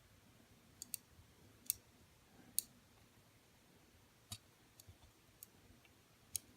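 Faint, irregular light clicks, about eight spread over several seconds, as tiny rubber tires are worked off the wheels of a die-cast toy car.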